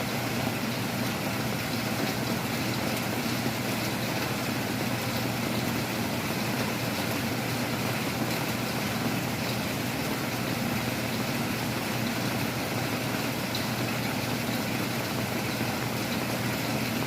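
Heavy rain with strong wind, a steady rushing noise that holds even throughout.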